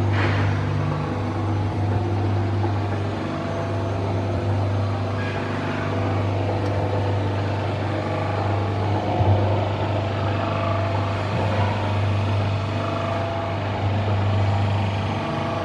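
Ribbon mixer's 7.5 hp electric gearmotor running at constant speed, a steady low hum.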